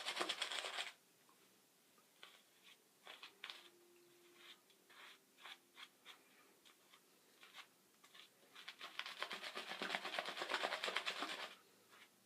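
Synthetic shaving brush being worked quickly through a lather of Mitchell's Wool Fat soap, a fast rhythmic wet swishing. It stops about a second in, leaving scattered soft clicks and pats, and starts again for a few seconds near the end.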